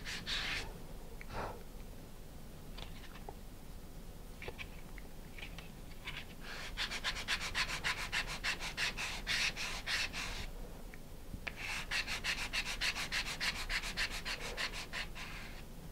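Sandpaper rubbing quickly back and forth across the edges of a tightly squeezed stack of wooden model-rocket fins. A few light scrapes come first, then two bouts of rapid strokes, about six and twelve seconds in.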